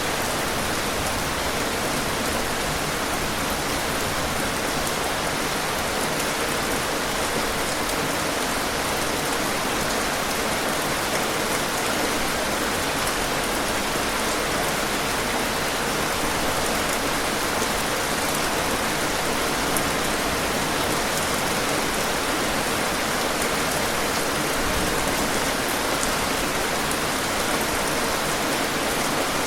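Heavy rain falling steadily: a dense, even hiss of rain on surfaces, unchanging throughout.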